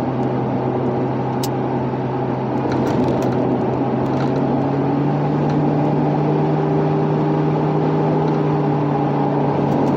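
Inside-cabin sound of a 2007 Ford Crown Victoria Police Interceptor at road speed: the steady hum of its 4.6-litre V8 and drivetrain over tyre and road noise, rising a little in pitch about halfway through. A new ignition coil on cylinder 3 is fitted, which the driver thinks has cured the misfire.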